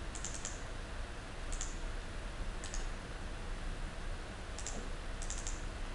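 Computer mouse buttons clicking: single clicks and a couple of quick runs of two or three clicks, a few seconds apart, over a faint low hum.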